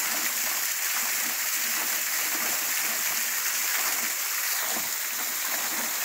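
Small waterfall partly frozen into icicles, its water falling and splashing steadily onto rock and ice.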